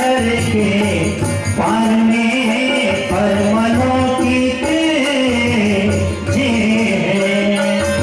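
A Hindi devotional bhajan sung by a male voice to a gliding melody, with a steady beat of drum and rattling percussion behind it.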